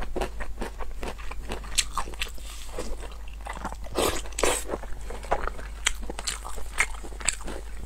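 Close-up chewing and biting on oily braised pig intestines: a run of irregular sharp mouth clicks and smacks. The loudest cluster comes about four seconds in.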